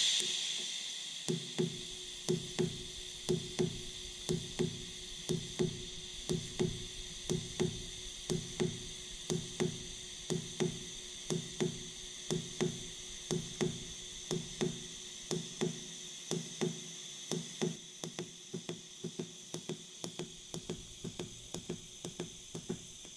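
TIG welding arc from a Fronius TransTig 210 running in pulse mode at 75 amps: a steady high arc hiss with a low buzz that swells and drops in a regular beat, about three pulses every two seconds, as the current switches between peak and a 33% background level.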